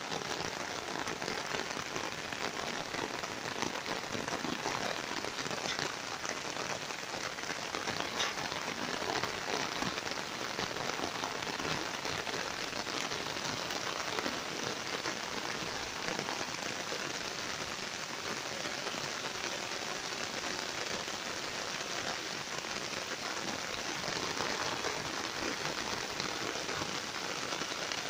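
Steady rain falling: an even hiss of drops with many small taps, holding at the same strength throughout.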